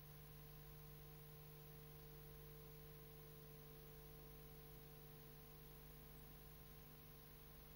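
Near silence: a faint steady hum with an even background hiss.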